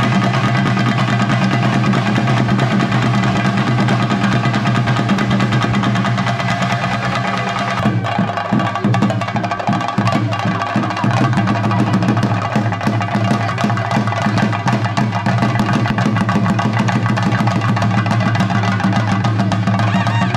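Drum music over a steady held drone. The drum strokes come sharper and denser from about eight seconds in.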